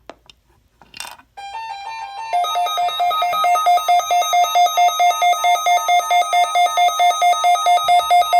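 Electronic emergency alert tones: a brief static-like burst, a few stepped beeps, then a loud pulsing electronic alarm beeping about three times a second over a steady tone, typical of a weather-radio warning alarm.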